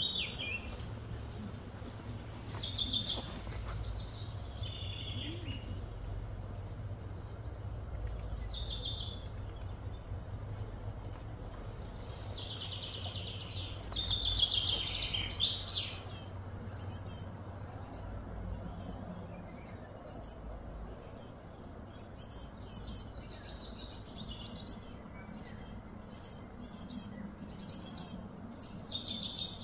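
Outdoor ambience of wild birds chirping and singing, with short whistled phrases that rise and fall, loudest about halfway through. A steady low hum runs underneath.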